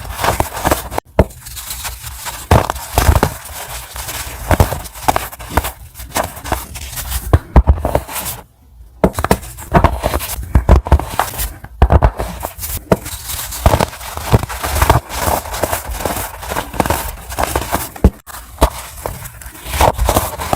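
Pressed baking soda chunks being snapped and crushed, a steady run of crisp crunches and crackles, broken off sharply a few times.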